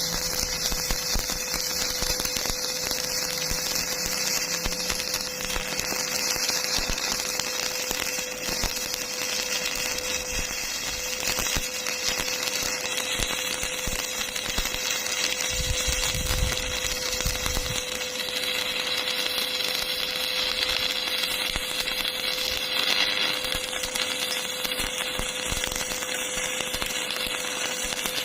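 Electric arc welding: the arc crackles and sputters steadily over a constant hum.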